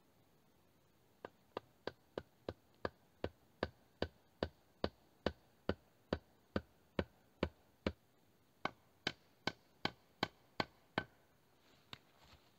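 A tool striking wood in a steady rhythm, a little over two sharp knocks a second, about twenty in all, with one short break partway through.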